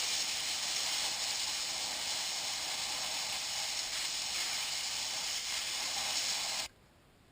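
Air hissing steadily out of a tire through the bleed button of a tire pressure gauge, as the tire is aired down for off-roading; the hiss cuts off abruptly near the end.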